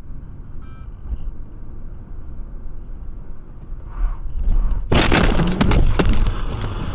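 Steady low rumble of a car driving, heard through a dashcam inside the car, then about five seconds in a loud collision: a sudden crash full of sharp cracks and breaking, lasting about a second and a half.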